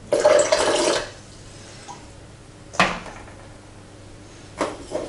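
A stainless steel mixing bowl holding rye sourdough starter and water being handled and set down on a kitchen scale and worktop: a noisy rush lasting about a second at the start, then a sharp metal clink about three seconds in and two more near the end.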